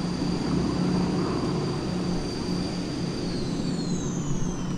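Several Canadair CT-114 Tutor jets' J85 turbojets running on the ramp: a low rumble with a high, steady whine. About three seconds in the whine starts falling in pitch as the engines are shut down and spool down.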